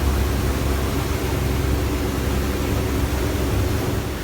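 Mekong slow boat's engine running steadily under way: a constant low drone with an even hiss over it.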